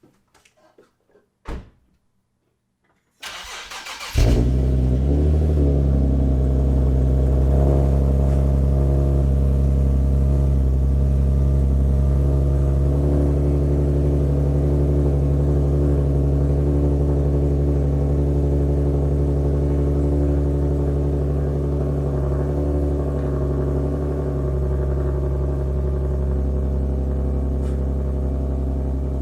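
Infiniti G37S sedan's 3.7-litre VQ37 V6 starting: the starter cranks for about a second, then the engine catches about four seconds in and settles into a loud, steady idle.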